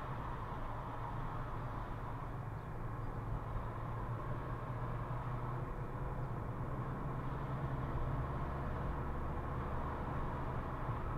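Car running on the road, heard from inside the cabin: a steady engine hum and tyre noise, a little louder in the second half as the car speeds up.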